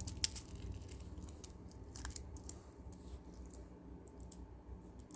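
Scattered faint light clicks of plastic beads knocking together as a beaded kandi bracelet is handled, over a steady low hum.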